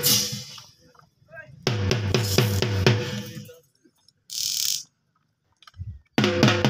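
Music with a fast, heavy drum beat that cuts in and out in short bursts, separated by dead silence. A brief hiss comes a little past the middle.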